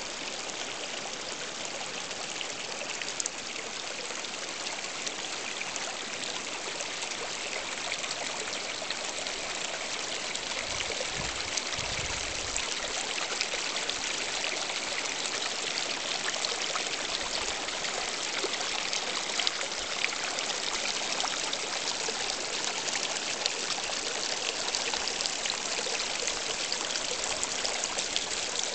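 Mountain river running steadily with snowmelt runoff, a continuous hiss and splash of water over rocks.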